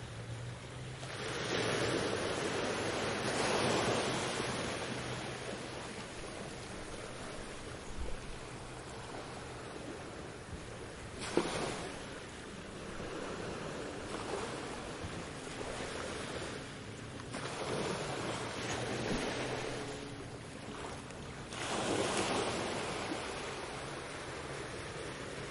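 Ocean waves breaking on a beach, the surf swelling and fading about four times.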